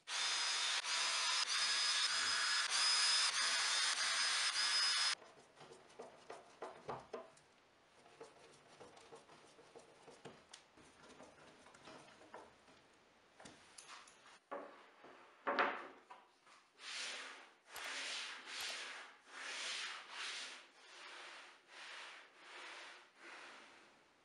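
Cordless drill running at a steady speed as it bores into a wooden sled runner for a screw, stopping abruptly after about five seconds. Quiet clicks and handling of wood and a screwdriver follow. Near the end comes a run of evenly spaced rubbing strokes, about one and a half a second.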